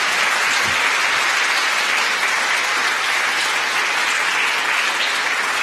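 A large audience applauding, many hands clapping in a steady, even wash of sound.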